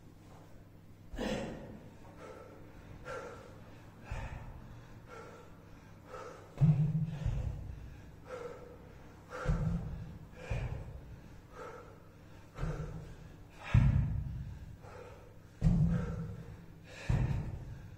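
A person breathing hard in repeated gasps about once a second, the effortful breathing of someone deep into a kettlebell circuit. From about a third of the way in, dull low thuds land with several of the breaths.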